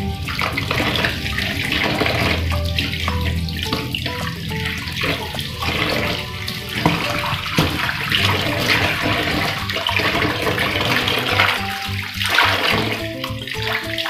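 Tap water running and splashing into a basin of water in a stainless-steel sink as spring onions are rinsed by hand under the stream.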